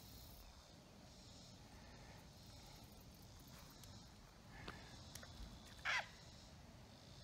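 Quiet outdoor ambience, with a few faint ticks and one short high chirp about six seconds in.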